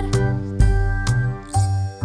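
Instrumental passage of a children's song with no singing, steady held notes over a bass beat about twice a second.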